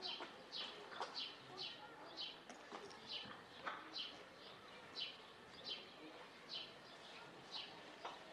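A small bird chirping over and over, faint, with short falling chirps coming about twice a second.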